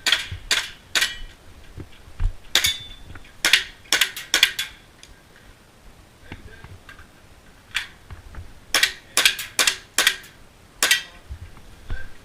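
Airsoft pistol firing at targets: sharp cracks, some in quick succession, in several strings with a pause of a few seconds midway.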